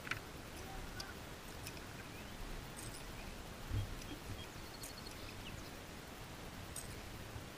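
Quiet ambience on a fishing boat: a low steady rumble with scattered faint ticks and clicks, and one dull thump about four seconds in.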